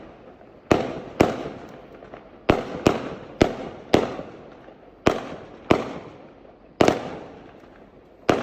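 Fireworks bursting: about ten sharp bangs at uneven intervals, each trailing off in a fading echo.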